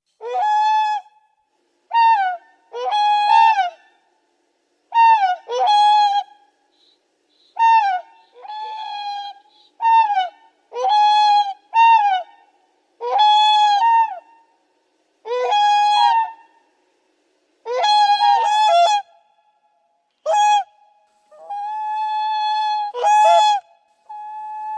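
A swan giving a series of brassy, horn-like honking calls, about one every second or so, each with a short slide in pitch at the start or end. Most calls are brief, and one longer held call comes near the end.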